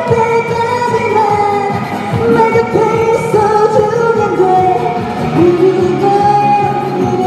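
A woman singing a Korean trot song live over amplified music, holding long notes that slide between pitches.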